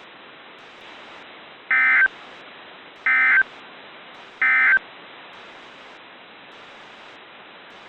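Three short bursts of EAS SAME digital data tones, the end-of-message code, about 1.3 seconds apart, over steady weather-radio hiss.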